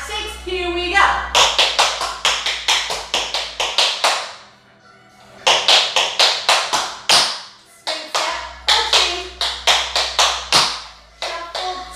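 Tap shoes' metal taps striking a wooden floor in quick rhythmic runs of steps, with a break of about a second and a half around four seconds in.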